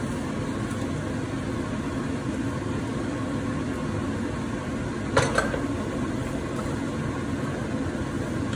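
Steady low rushing noise of a lit gas burner under a frying pan as stir-fried noodles and greens are tossed with a wooden spoon. A single sharp knock about five seconds in, the spoon striking the pan.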